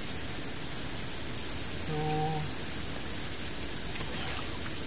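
High-pitched steady chirring of insects, with a pulsing trill on top from about a second in until near the end.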